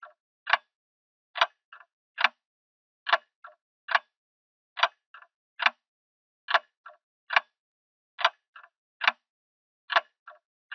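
Clock ticking steadily, a little faster than one tick a second, every other tick followed by a fainter click. Dead silence between the ticks, as in an added sound effect.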